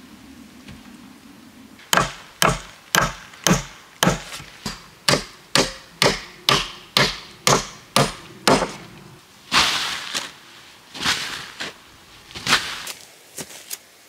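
A hand tool striking wood: a run of about fourteen sharp blows, roughly two a second, starting about two seconds in. These are followed by a few longer, rougher noises of about a second each.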